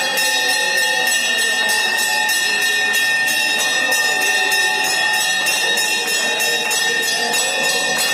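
Brass temple bells rung continuously during an aarti: steady ringing tones over rapid, regular strikes, with hand clapping and voices singing underneath.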